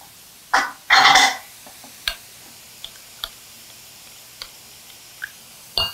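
Kitchen handling sounds: a short scraping rustle about a second in, then scattered light clicks of bowls and utensils, and a couple of ringing clinks near the end.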